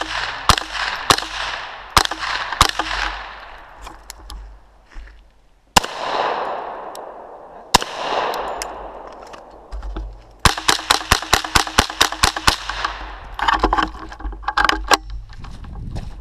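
Semi-automatic .22 rifle fire from a Smith & Wesson M&P 15-22: several shots about half a second apart, two slower shots with long ringing echoes, then a rapid string of about a dozen shots at roughly five a second, followed by a few more.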